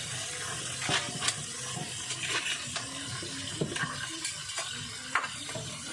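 A utensil clinking and scraping against a cooking pot of crabs, a few sharp knocks over a steady hiss of cooking.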